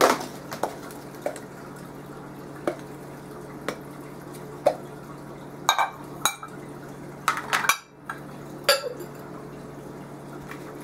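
Glass food-storage containers and their plastic lids knocking and clinking against each other and the table as they are handled and their protective plastic wrap is peeled off: about ten scattered sharp clinks, a couple of them close together near the middle.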